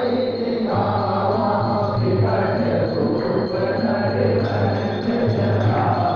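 Hindu devotional music: singing voices over jingling percussion and a steady low drone.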